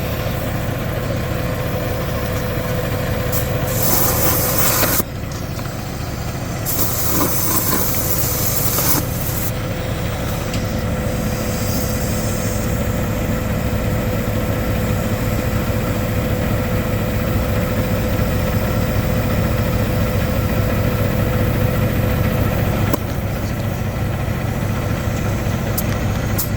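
Semi truck's diesel engine idling steadily, with compressed air hissing in two bursts about four and seven seconds in as the tire is aired up from the truck's air line.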